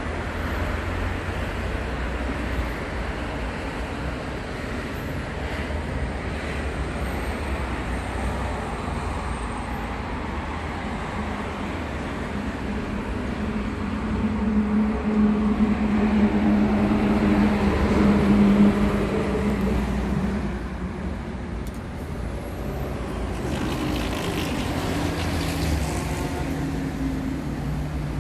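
Road traffic noise: vehicle engines running with a steady low rumble, one vehicle's engine hum growing louder about halfway through and fading again, another hum near the end.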